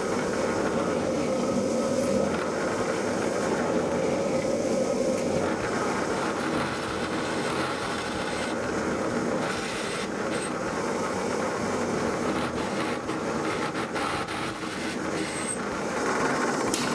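Drill press running steadily while drilling a row of holes through a thin guide-rail strip, the motor and the bit cutting into the strip heard together.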